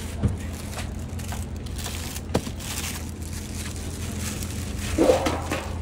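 Cardboard TV carton and polystyrene foam packing being handled during unboxing: two sharp knocks, then a louder crackling, crinkling rustle just after five seconds in, over a steady low background hum.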